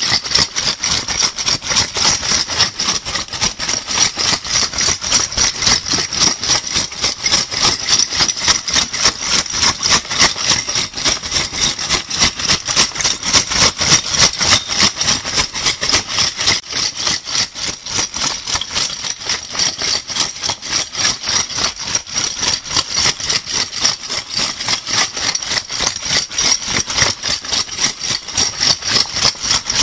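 A handful of metal crown bottle caps being shaken together, giving a steady, rapid rhythmic jingling rattle of metal on metal.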